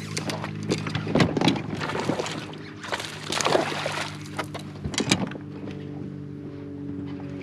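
Irregular splashes and knocks from a hooked bass thrashing at the surface beside a fishing kayak, loudest about a second in, around three and a half seconds in and near five seconds, over background music of sustained chords that change about five and a half seconds in.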